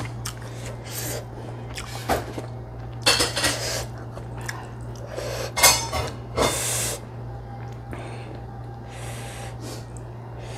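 A person eating hot fried rice noodles: several short slurps and sucked-in breaths, with a metal fork clinking and scraping against a glass dish, over a steady low hum.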